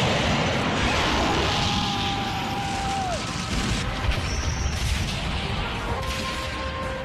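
War-film battle soundtrack: a continuous rumble of explosions with crashing debris, mixed with background music.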